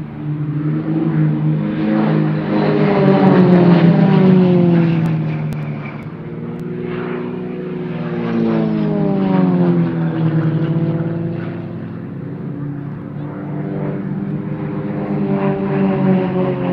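Single-engine propeller aerobatic planes flying past overhead. The engine drone swells and falls in pitch as they pass, loudest about four seconds in, passes again around nine seconds in, and builds once more near the end.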